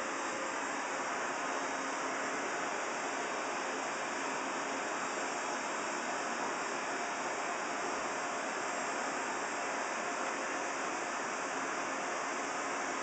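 Steady, even hiss with no distinct events, like a fan or blower running.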